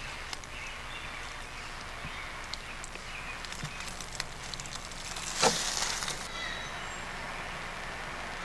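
Quiet background with a steady low hum and scattered faint clicks. A sharp hiss breaks in a little past halfway and lasts under a second.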